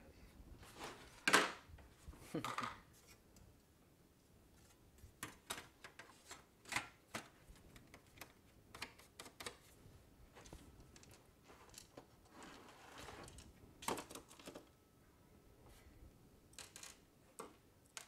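Irregular clicks, taps and knocks of a disassembled PS4's metal chassis, shield and loose parts being handled on a workbench, with a small screwdriver picked up and put to work; the sharpest knocks come about a second and a half in and near fourteen seconds.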